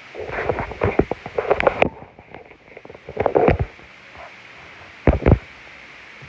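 Pencil being sharpened: three bouts of rough, clicky scraping as the pencil is worked against the blade, the last one short.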